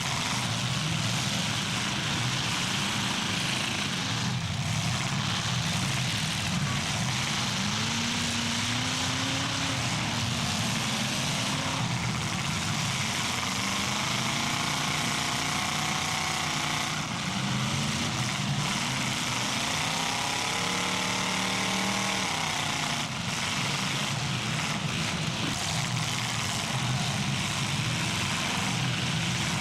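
Several big demolition derby cars' engines running at once, with revs rising and falling repeatedly through the middle of the stretch over a steady engine din.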